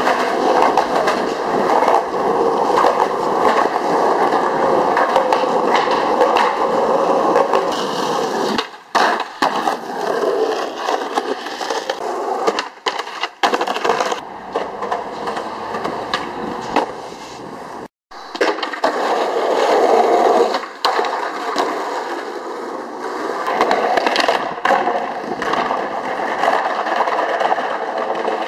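Skateboard wheels rolling over concrete and paving with a steady grinding rumble, broken by sharp clacks of the board popping and landing on flatground tricks. The sound breaks off briefly a few times.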